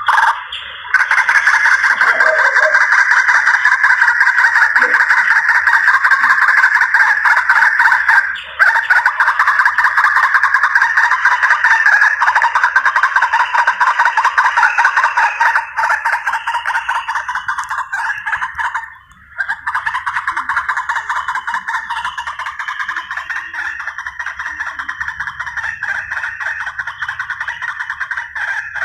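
White-breasted waterhen (ruak-ruak) calls played as a hunting lure: a continuous run of rapid, harsh repeated notes, briefly broken twice.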